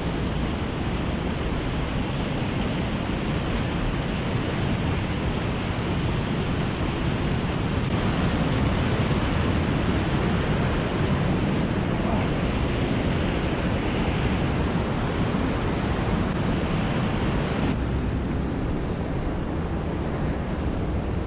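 Stream water rushing over rock cascades into a pool: a steady, loud rush that turns slightly duller near the end.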